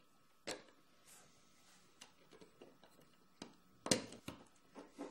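Small, sharp clicks and taps of hand assembly: steel dowel pins and ball bearings being pressed into a 3D-printed plastic extruder body. One click about half a second in, the loudest just before four seconds, and a scatter of lighter ticks around it.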